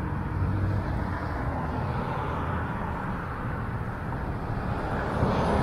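Road traffic passing through a busy intersection: a steady rumble of car engines and tyres on the road.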